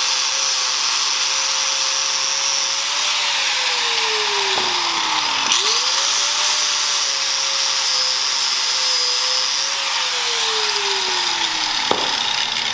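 Corded angle grinder running against a steel strut, grinding down the factory dust-cover sleeve, with a loud high-pitched grinding hiss. The motor's pitch holds steady, sinks slowly over a couple of seconds, climbs back up about halfway through, then sinks again near the end.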